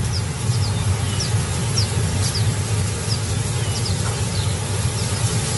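Nighttime savanna ambience: short, faint, high chirps falling in pitch, every half second or so, over a steady low rumble.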